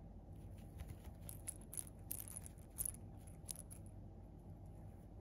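Cat teaser toy with a blue pom-pom, shaken and batted by a cat's paw: a run of quick, irregular clicks and jingles that stops about four seconds in.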